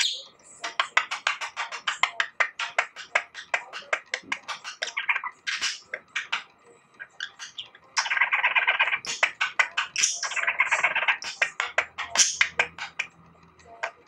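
Budgerigar warbling: fast runs of clicks and chirps, with two denser, louder stretches of chatter in the second half.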